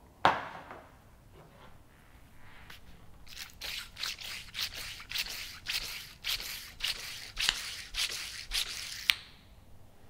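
Worn mountain-bike fork damper cartridge pumped by hand, giving a very strong squelching, smacking sound with each quick stroke, starting about three seconds in and stopping about nine seconds in. The smacking is the sign of air mixed into the damper oil and foamed it, so the cartridge is not in order. A single knock of handling comes just at the start.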